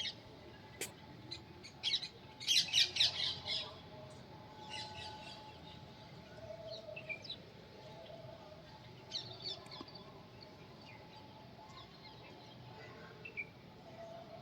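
A bird chirping in quick series of short, high chirps, loudest in a run about two to three seconds in, with smaller scattered groups of chirps after.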